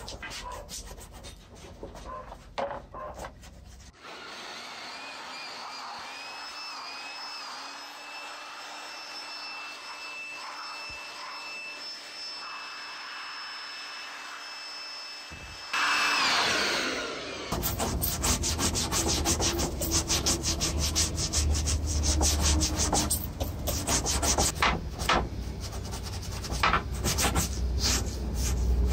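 Small brush scrubbing wet plastic CRT computer parts in soapy water. For about eleven seconds in the middle, an electric hot-air blower runs with a steady high whine, then winds down. After that, fast scratchy brush strokes scrub a vented plastic casing panel.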